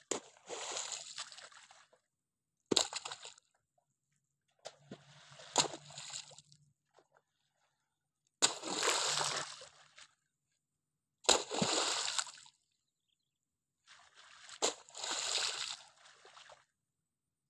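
A spade digging wet mud: about six rounds of a sharp strike as the blade bites in, followed by a second or so of wet splashing as the mud is lifted and thrown, with short gaps between.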